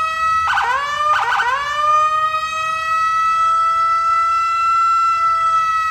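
Electronic police-car siren: two quick rising whoops in the first second and a half, then one long steady held tone.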